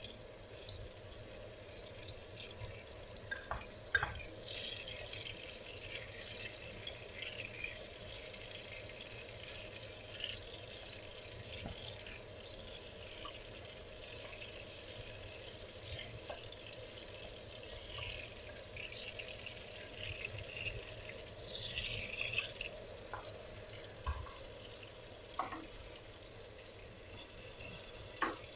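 Chopped onion, garlic and diced tomato sizzling in oil in a pot, with a wooden spatula scraping and knocking against the pan now and then. The loudest scrapes come about four seconds in, around twenty-one seconds, and near the end.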